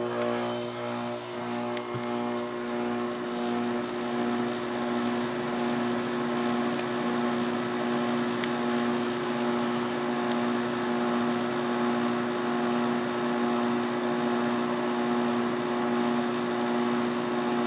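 Kenmore 5000 BTU window air conditioner starting up on low cool and running steadily: fan air rushing with a strong, even electrical hum.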